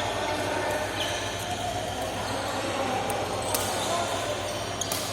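Court game in an indoor hall: a few sharp hits of a ball or racquet, about a second in, near the middle and near the end, over a steady murmur of voices.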